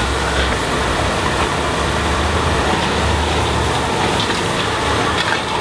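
Gas-cylinder-fed wok burners of a street stir-fry stall running at high flame: a steady, loud rush with a low rumble underneath.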